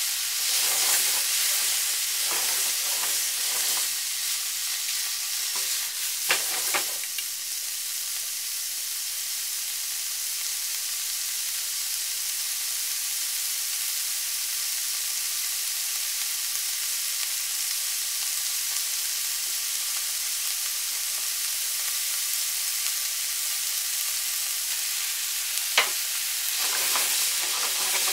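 Pork, carrot and onion sizzling steadily in hot oil in a nonstick frying pan. A utensil stirs the food, with scraping and clicks in the first few seconds, again about six seconds in, and near the end, where a sharp click is the loudest single sound.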